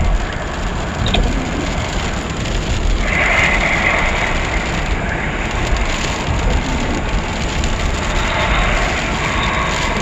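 Car driving slowly through rain: a steady hiss of rain and wet tyres over a low rumble, a little louder from about three to five seconds in.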